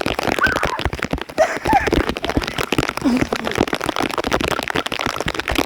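Heavy thunderstorm rain, the drops striking the microphone at close range in a dense, loud crackle.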